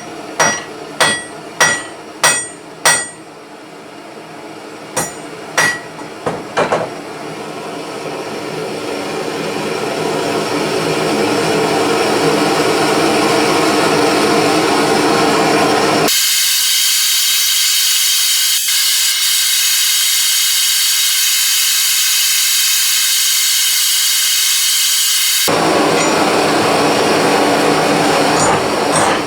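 A ball pein hammer strikes the rebar in a quick run of about six ringing blows, then three more a few seconds in. A Radius blow lamp's hissing flame swells up and runs steadily for the rest, reheating the bar.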